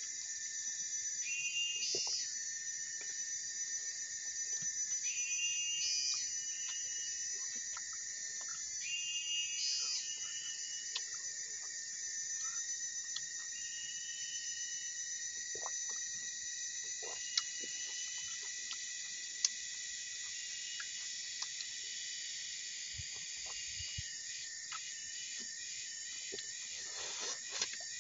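A steady, high-pitched chorus of insects in riverside jungle, with repeated chirping calls rising over it in the first ten seconds. Near the end a rapid pulsed call joins in, about three pulses a second.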